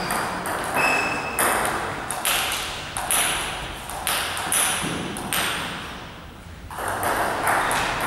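Table tennis rally: the ball clicking off rubber paddles and the table in quick alternation, roughly one to two hits a second, with a short lull about six seconds in before the hits start again.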